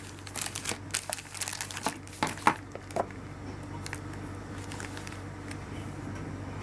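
Clear plastic zip bags (LDPE) crinkling as accessories in them are handled and set down, a scatter of crackles and clicks over the first three seconds. After that there is only a low steady hum.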